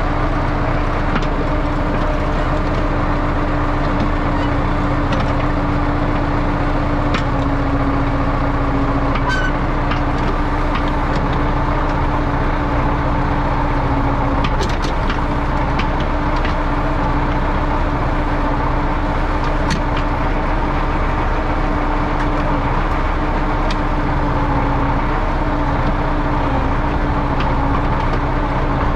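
Diesel engine of a JUMZ EO-2621 tractor excavator running steadily at working speed, with a steady tone above the engine note and scattered light clicks and knocks.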